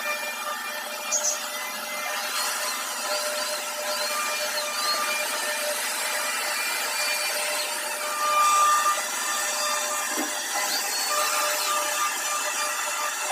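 CNC router spindle carving a door design, a steady high whine over continuous cutting noise, briefly louder about eight and a half seconds in.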